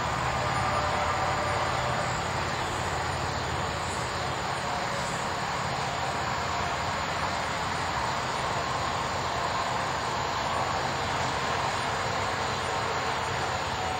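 Steady low rumbling background noise with no single event standing out.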